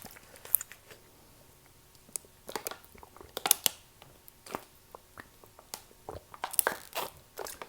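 Close-miked chewing and mouth noises: irregular wet clicks and smacks.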